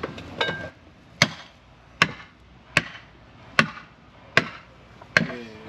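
Six sharp, evenly spaced blows of a hand tool, about one every 0.8 seconds.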